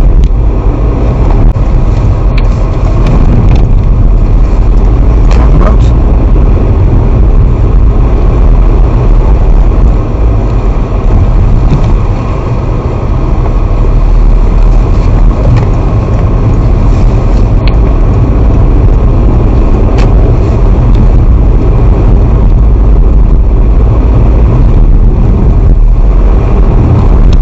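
Steady, loud low rumble of a car being driven: engine and tyre-on-road noise heard from inside the cabin, easing off briefly about halfway through.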